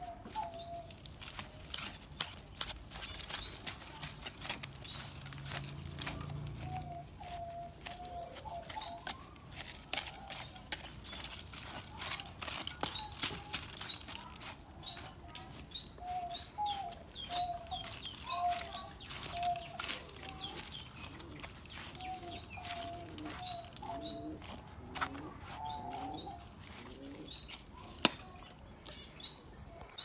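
Small hand scraper scratching and chopping through dry, crumbly soil in irregular strokes, with a couple of sharper knocks. Birds call in the background throughout, in short repeated notes and higher chirps.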